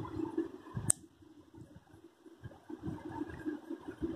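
Crayon rubbing in quick irregular strokes on paper while a background is coloured in, with one sharp click about a second in.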